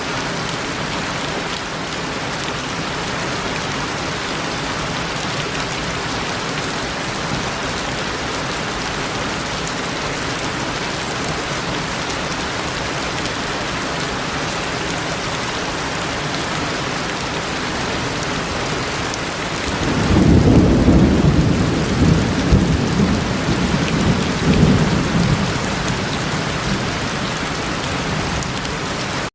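Steady rain falling, with a long roll of thunder about two-thirds of the way through that rumbles for several seconds and dies away.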